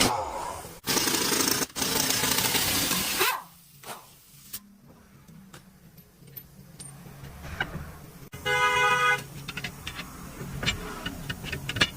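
A loud rushing hiss lasts about three seconds with two brief breaks. Then low background with scattered clicks, and a short vehicle horn honk about eight seconds in.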